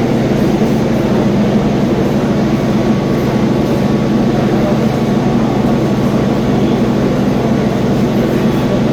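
Loud steady rumbling noise with a constant low hum underneath, a machine or engine running.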